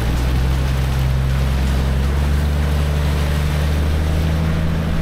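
Toyota LandCruiser 100 Series four-wheel drive wading through a flooded red-dirt crossing: a steady engine drone under the rush and splash of water pushed along the side of the vehicle.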